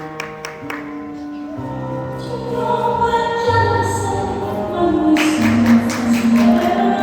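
Choral music with held, sustained chords, played as a winter guard show's soundtrack, with percussion hits near the start and about five seconds in.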